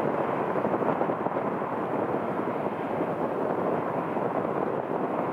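Steady, deep roar of a Boeing 777-300ER's two GE90-115B turbofan engines as the airliner climbs away after takeoff, heard from behind with little high-pitched whine.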